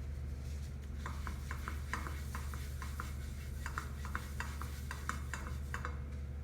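A utensil beating pancake batter by hand in a bowl, in quick, even strokes of about four to five a second. The strokes start about a second in and stop shortly before the end, over a steady low hum.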